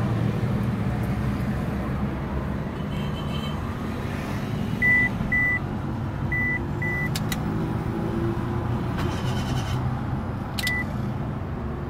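Short high electronic beeps inside a car, in two pairs about half a second apart around the middle and one more near the end, over a steady low hum; two sharp clicks fall between them.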